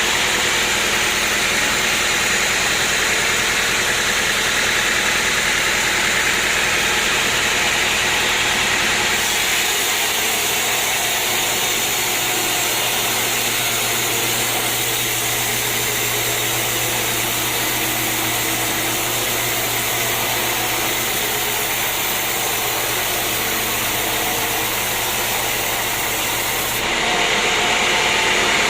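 Sawmill machinery running steadily. Its tone changes about a third of the way in, when a steady low hum comes in, and again shortly before the end.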